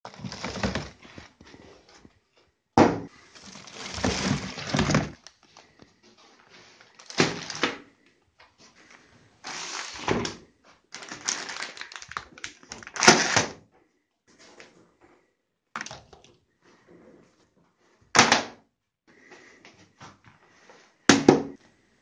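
Irregular thunks, knocks and rustling from objects being handled and put down, about a dozen separate bursts with short quiet gaps between them. The sharpest knocks come about three seconds in, around halfway and near the end.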